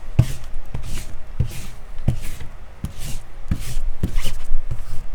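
Trading cards being handled and set down on a table: a run of light knocks with rustling, about two a second.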